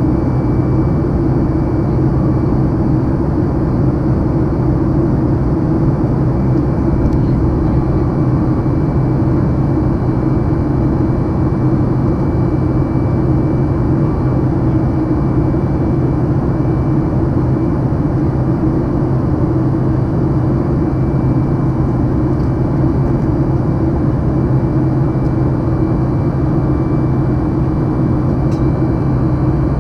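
Steady cabin noise of a Boeing 737 MAX in flight, heard from a window seat beside the wing: the drone of its CFM LEAP-1B engines mixed with the rush of air past the fuselage, with a faint steady high tone over it.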